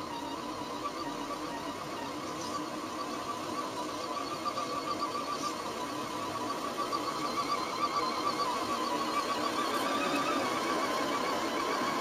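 Electric motor and gear drivetrain of an Axial SCX10 Honcho RC crawler whining steadily under load as it grinds up a sand slope, the whine wavering in pitch and slowly growing louder.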